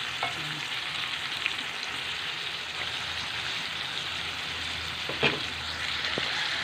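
Chicken pieces sizzling in hot oil with ginger, garlic and onion in a metal wok while being stirred with a wooden spatula: the sangkutsa sauté that sears the chicken before the broth goes in. A few short knocks of the spatula against the pan, the loudest about five seconds in.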